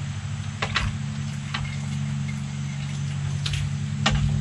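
A white utensil scooping cooked apples out of an electric pressure cooker pot and knocking against the metal pot and cone sieve: several light clinks and taps, the sharpest near the end, over a steady low hum.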